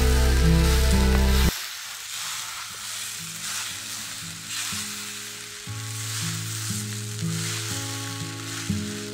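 Vegetable fried rice sizzling in a wok as a spatula stirs and turns it, a steady hiss with a rough, scraping texture. Background music plays along, loud for about the first second and a half, then much quieter.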